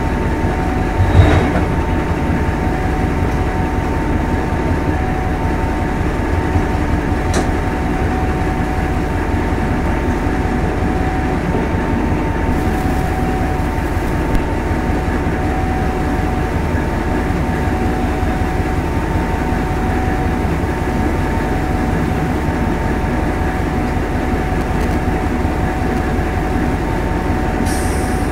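Hastings diesel-electric multiple unit running along the line, a steady rumble of engine and wheels with a constant whine. A single heavy thump about a second in and a short click a few seconds later.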